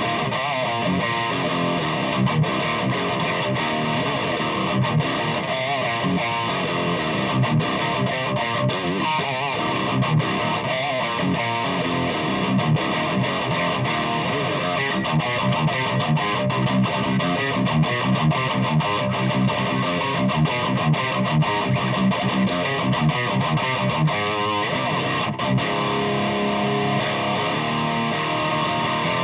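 Electric guitar played through a BluGuitar Amp1 Iridium Edition amp with heavy distortion, in fast-picked metal riffing. Near the end it gives way to held, ringing chords.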